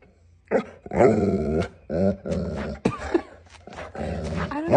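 A dog growling and grumbling in several drawn-out bouts, each half a second to a second long, in reaction to a person's hiccups.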